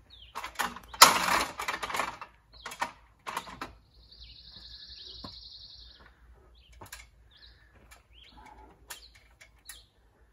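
Small birds chirping, with short high chirps scattered throughout and a buzzy trill lasting about two seconds near the middle. About half a second in, a loud rasping noise lasts a second or so and is followed by a few shorter ones.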